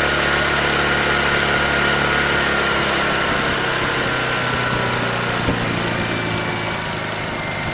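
Honda EU2000i inverter generator's single-cylinder four-stroke engine running steadily, then slowing gradually and getting a little quieter from about three seconds in as eco mode brings it down to a lower speed. In eco mode it shakes more than the owner expects, which he suspects comes from something small in the carburetor.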